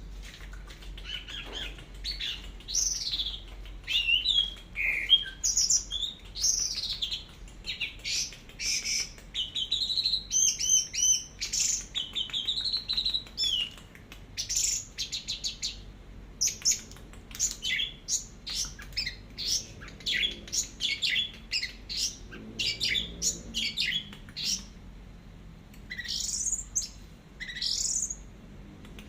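Orange-headed thrush singing a long, unbroken song in the 'teler' style. The song is made of rising and falling whistles, with quicker runs of short, clipped notes in the second half.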